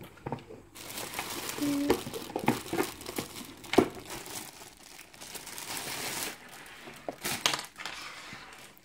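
Clear plastic bag crinkling as a hard zippered case is pulled out of it, a dense rustle for several seconds. A few sharp knocks come about four seconds in and again near the end.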